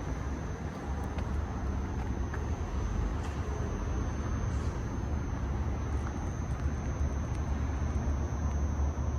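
Steady low rumble of a narrow-gauge electric railcar, heard from inside the cab, with a faint thin high tone running through it.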